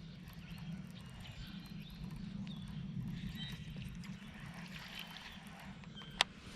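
Quiet lakeside ambience: faint bird chirps in the distance over a steady low hum, with a single sharp click near the end.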